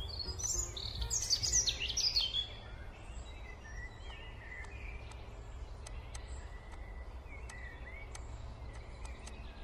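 Birds chirping: a burst of quick, bright chirps and trills in the first two seconds or so, then fainter scattered chirps over a low steady hum.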